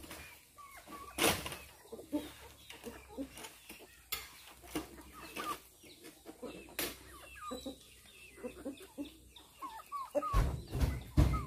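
Chickens clucking steadily, with a few loud thuds of oil palm fruit bunches being pitched into the steel bed of a dump truck, the heaviest a low thump near the end.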